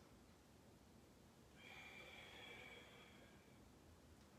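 Near silence, with one faint breath through the nose lasting about two seconds, starting about a second and a half in.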